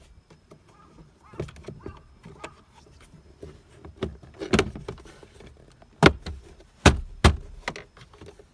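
A run of light clicks and rattles from handling parts inside a car, with several sharper knocks in the second half.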